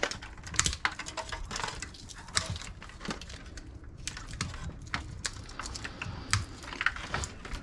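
Irregular light clicks, taps and small knocks of metal and plastic parts being handled while scrap electronics are taken apart.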